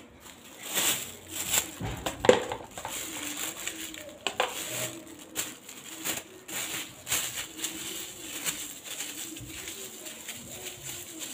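Plastic spoon scooping and pressing soft cooked semolina swallow in an aluminium pot, with irregular scrapes and knocks against the pot, strongest in the first couple of seconds.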